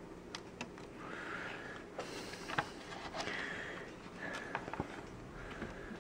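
Handling noise from reassembling a plastic vacuum-cleaner housing: scattered small clicks and taps of plastic parts and wires, the loudest about halfway through, with short stretches of rubbing and rustling.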